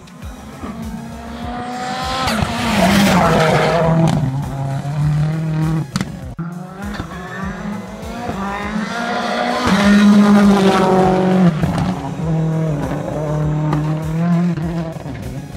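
RX3 rallycross race cars at full throttle coming past twice, each pass building to a loud peak. Engine pitch climbs and drops in steps, and there is a sharp break about six seconds in.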